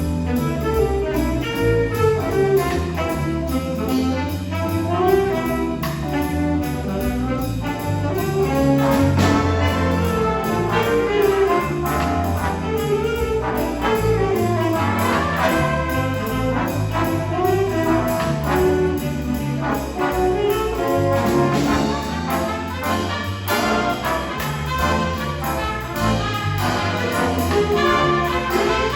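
High school jazz big band playing a tune, with trumpets and trombones in brass section phrases over a walking bass line and rhythm section.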